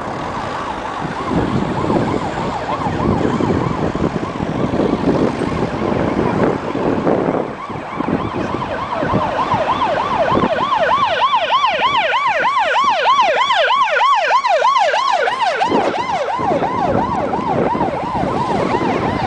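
Emergency vehicle siren in a fast yelp, the tone sweeping up and down about two to three times a second. It grows loudest about halfway through, then eases off, over a low rumble.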